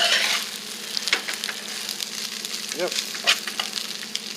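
Fried rice sizzling in a pan, with a utensil scraping and clicking against the pan at irregular moments as it is stirred.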